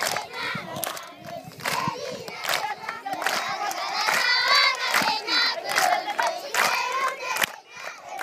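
A large group of children singing and chanting loudly together, with claps sounding along at irregular intervals.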